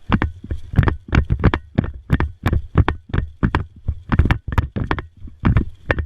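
Footsteps and knocks close to the microphone, about three a second and uneven, over a faint steady high whine.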